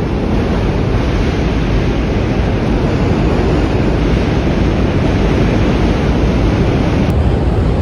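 Subway train rumbling past on elevated tracks overhead: a loud, steady roar.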